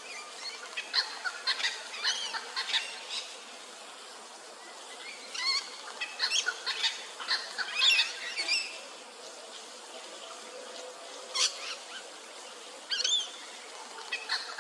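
Little wattlebird and noisy miner calling in a standoff: harsh, raucous calls in short bursts, with clusters of quick notes separated by pauses of a second or two.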